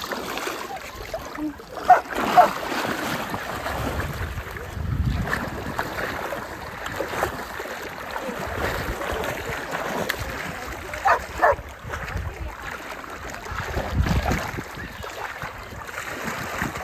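Shallow sea water sloshing and splashing as dogs wade and swim after a ball, with two pairs of short, high yips from an excited dog, about two seconds in and again just past the middle.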